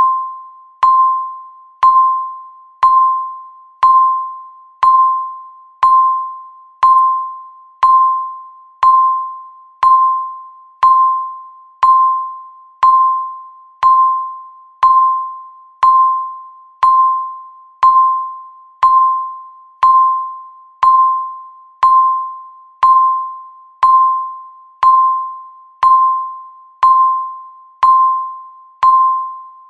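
Countdown timer's electronic beep sounding once every second, about thirty times. Each beep is a clear single-pitched tone that starts sharply and fades away before the next one.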